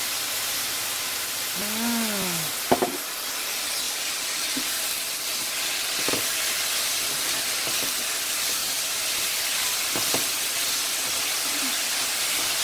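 Sliced mushrooms frying in a hot pan with a dark sauce, a steady sizzling hiss, while a plastic spatula stirs them. A sharp double knock of the spatula against the pan about three seconds in, and lighter clicks later.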